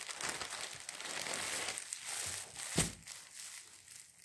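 Clear plastic polybag crinkling and rustling as a folded shirt is pulled out of it, with one sharp crackle just before three seconds in, after which it goes quieter.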